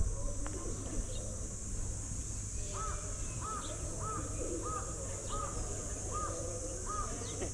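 A flock of flamingos calling in many overlapping low, wavering voices. About three seconds in, one bird starts a regular series of short higher calls, nearly two a second. A steady high insect buzz runs underneath.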